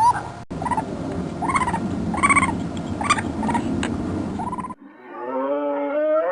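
Short animal calls repeated over a rough, rumbling background noise, cut off abruptly about three-quarters through; a single held, wavering musical tone follows.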